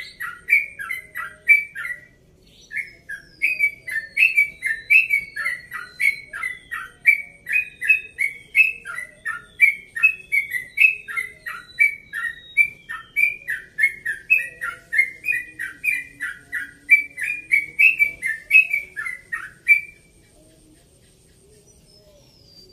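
Caged yellow-vented bulbul (trucukan) singing a long, unbroken run of quick chirping notes, about three a second. It pauses briefly about two seconds in and stops near the end.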